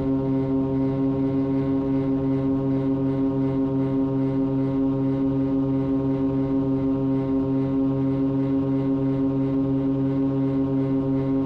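Twin-engine Cessna 340's turbocharged piston engines and propellers droning steadily at climb power, heard inside the cockpit, with a slight regular pulsing in the tone.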